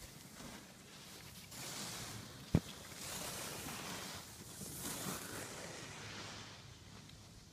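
Skis sliding and scraping over packed snow, a hiss that swells in a few waves, with wind rushing on the microphone. A single sharp click about two and a half seconds in.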